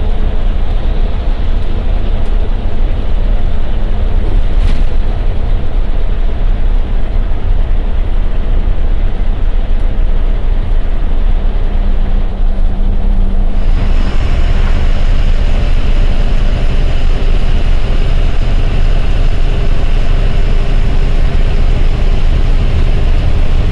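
Ashok Leyland diesel bus engine running under way with road and rattle noise, heard loud and steady from inside the cabin. About two-thirds of the way through the sound turns brighter and a higher whine joins the drone.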